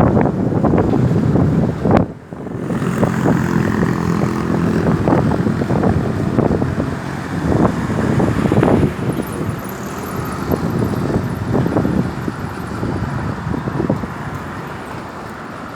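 Road traffic: a steady rumble of passing vehicles' engines and tyres with irregular surges, growing gradually quieter over the last few seconds.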